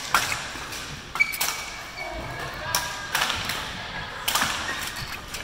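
Badminton rackets hitting a shuttlecock in a doubles rally: a string of sharp hits, some in quick pairs, about one to one and a half seconds apart.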